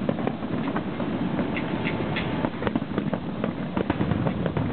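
Fireworks bursting overhead: scattered sharp pops and crackles over a steady background rumble.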